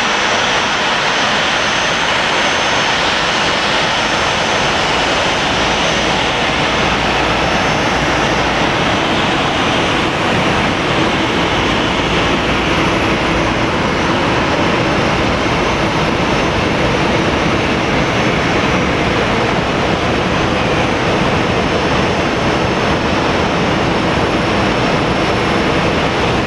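Boeing 737-800's CFM56-7B jet engines running steadily at low thrust as the airliner taxis past: a loud, even rush with a thin high whine.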